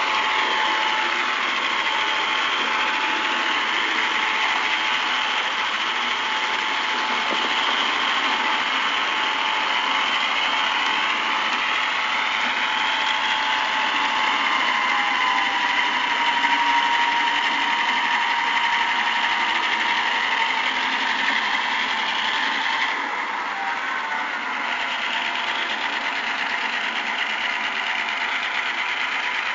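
Model train locomotive running along the track, its small electric motor and gears whining steadily. The whine glides slowly up and down in pitch as its speed changes, and drops a little in level about two-thirds of the way through.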